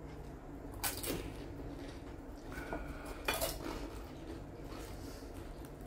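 Cutlery and dishes clinking: two light knocks of tableware, about a second in and again a little past the three-second mark, with quieter handling between.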